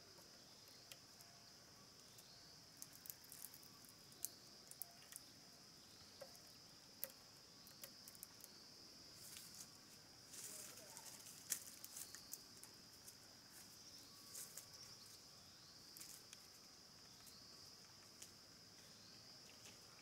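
Insects trilling steadily and faintly, with scattered sharp clicks and a few brief scraping sounds.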